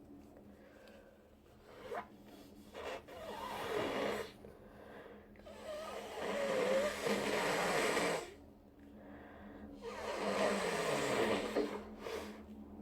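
A person with a congested head cold blowing their nose into a tissue: a few short snorts, then two long, wet blows.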